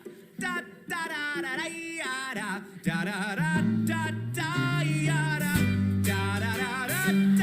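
A voice sings the wordless 'da da da' refrain, a short rising and falling phrase at a time. About halfway through, a band comes in under it, with low bass notes and guitar.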